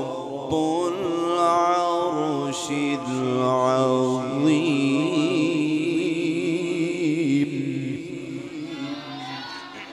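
A male Quran reciter (qari) sings one long, melismatic phrase of tajwid recitation into a microphone. His voice is held and ornamented with a wavering pitch, then fades away in the last couple of seconds.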